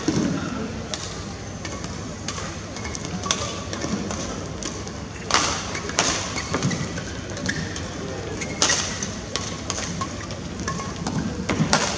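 Badminton rally: sharp cracks of rackets hitting the shuttlecock, roughly one a second, with thuds of footwork on the court, over a steady indoor arena background.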